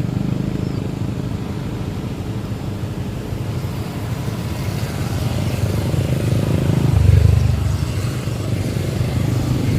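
Motorcycle engine running on the road as it is ridden, steady, with a swell in level about seven seconds in.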